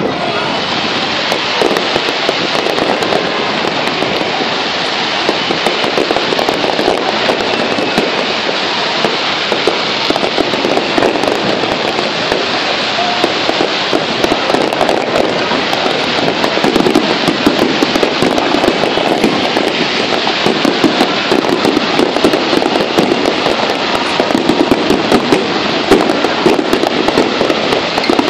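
Aerial fireworks display: a dense, unbroken barrage of shell bursts and crackling, growing louder with sharper bangs toward the end.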